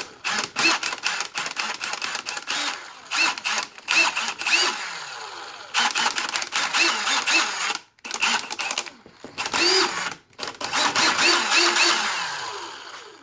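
Milwaukee M18 FUEL 2853-20 cordless impact driver motor spinning up and down in a string of quick bursts as the trigger is pulsed rapidly, with brief pauses between. After some releases the motor coasts down slowly instead of stopping at once, a sign of the malfunctioning electric brake.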